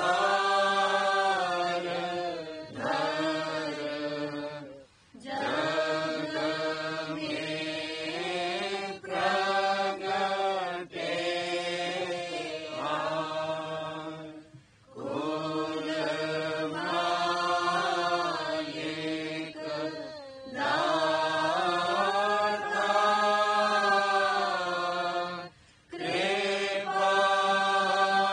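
Devotional chanting of a hymn, sung in long drawn-out phrases with pitch slides and a short break every five or six seconds.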